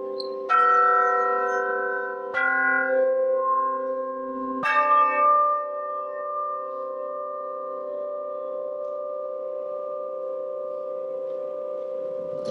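Suspended metal bell plates struck with a mallet three times in the first five seconds, each stroke ringing out with several pitches. The strokes overlap into a long, slowly fading metallic chord.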